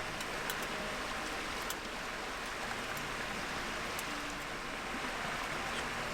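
River water rushing steadily over rocks, a constant even hiss.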